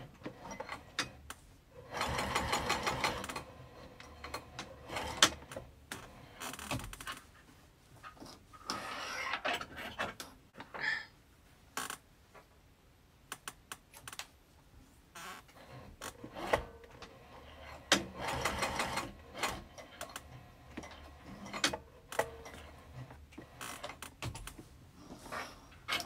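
Sewing machine stitching in several short bursts, the longest lasting about a second, with separate clicks between the bursts.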